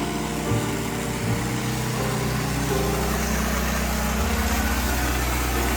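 Gas-engine pressure washer running steadily, with the hiss of its water spray; the engine note changes about four seconds in.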